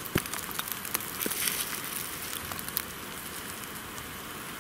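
Light rain pattering, a steady hiss with scattered small clicks and taps.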